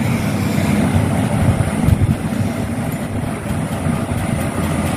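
A steady low rumble with no speech, even in level throughout.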